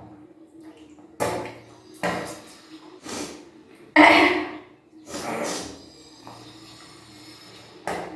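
A person retching and bringing up water in repeated gushes during kunjal kriya, the yogic stomach cleanse. There are six gushes, each sudden and falling away within about half a second; the one about four seconds in is the loudest.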